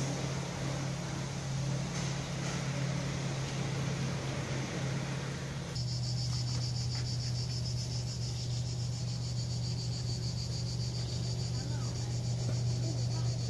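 Cicadas shrilling in the trees: a dense, rapidly pulsing high drone that sets in about six seconds in and holds steady, over a constant low hum.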